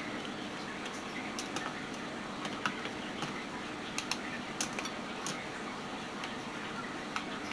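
Scattered faint light clicks and ticks as baking chips are dropped by hand into a glass mixing bowl of cookie dough, over a faint steady hum.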